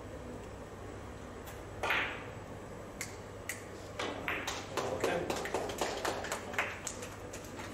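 Carom billiard balls in play after a three-cushion shot: a sharp knock about two seconds in, a couple of single clicks, then a quick run of clicks and knocks as the balls strike each other and the cushions before settling.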